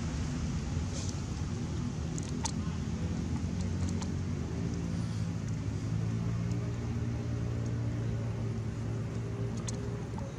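Steady low hum of a running engine, with a few faint clicks.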